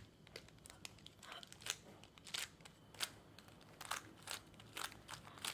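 A Rubik's cube being turned by hand: faint, irregular plastic clicks of its layers rotating, some coming in quick runs.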